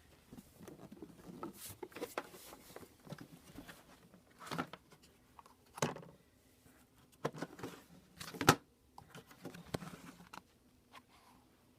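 Irregular handling noises: scattered clicks, knocks and rustling, with the sharpest knock about eight and a half seconds in.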